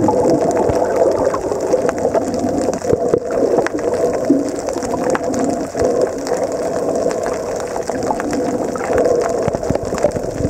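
Muffled underwater noise picked up by a submerged camera over a reef, a steady rush of water with scattered sharp clicks throughout.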